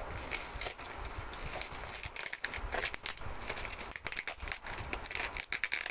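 Bubble wrap and plastic packing crinkling and crackling, with many small quick clicks, as hands pull and twist at a tightly taped parcel.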